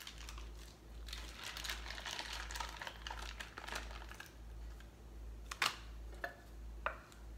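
Packaging crinkling as it is handled for about three seconds, then three short sharp clicks roughly half a second apart.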